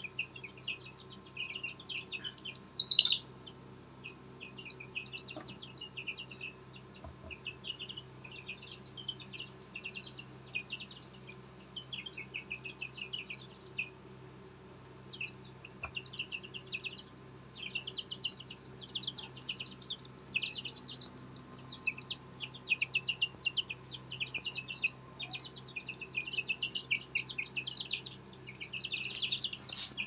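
Young aseel chicks peeping and cheeping continuously, many rapid high-pitched calls overlapping, with one louder, longer call about three seconds in.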